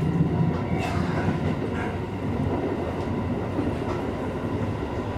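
Shin-Keisei Electric Railway commuter train running along the track, heard from inside the front car: a steady rumble of wheels on rails, with a couple of faint knocks about one and two seconds in.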